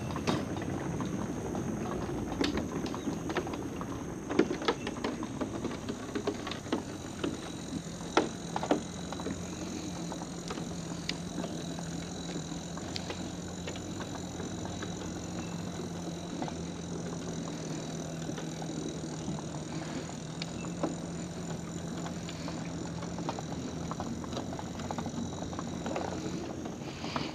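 Footsteps knocking on the wooden boards of a fishing dock, a handful of sharp knocks in the first third, over steady outdoor background noise. A faint low steady hum comes in about a third of the way through and fades out near the end.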